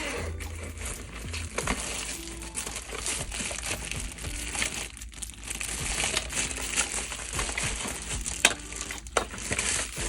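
Plastic packaging crinkling and rustling as it is handled and opened, with a few sharper crackles and clicks.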